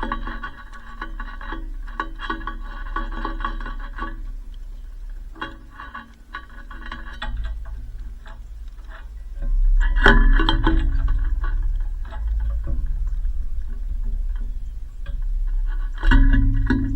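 Background music: held tones in phrases of a few seconds over a low bass hum, growing louder about ten seconds in.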